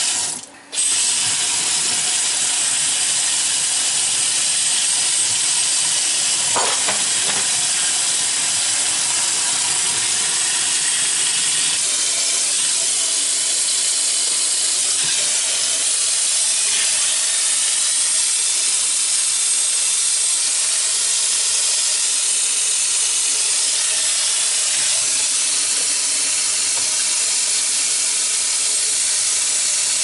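Delta single-handle kitchen faucet, freshly rebuilt, running at full flow into a stainless steel sink: a loud, steady rush of water that comes on fully about a second in.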